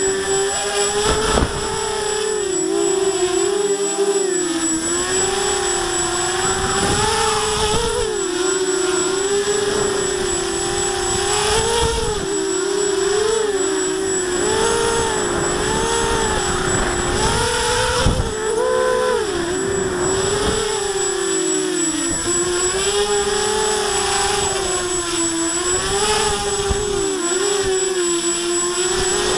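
Walkera Runner 250 racing quadcopter's four brushless motors and propellers whining close to the microphone, the pitch rising and falling over and over as the throttle is corrected. Gusts of wind rumble on the microphone, with a faint steady high whistle above.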